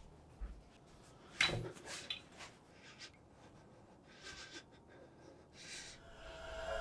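Quiet room with a man's soft breaths and small movement sounds, the most distinct a short sharp one about a second and a half in. Near the end, a rising swell of eerie horror-film music begins.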